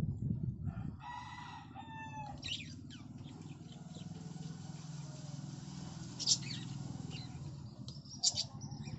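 A rooster crowing once, a stepped call with a short break in it, about a second in, over a steady low hum. Later come two short, sharp, high sounds.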